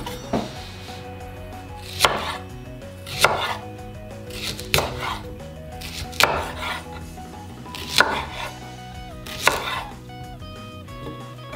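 Chef's knife cutting a long green onion (negi) into short lengths on a wooden cutting board. There are seven unhurried cuts, about one every second and a half, each ending in a sharp knock of the blade on the board.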